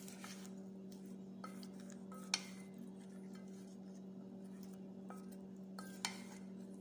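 Wooden spoon stirring fish pieces in a spice marinade in a stainless steel bowl, tapping against the bowl a few times, most sharply about two seconds in and again about six seconds in. A steady low hum runs underneath.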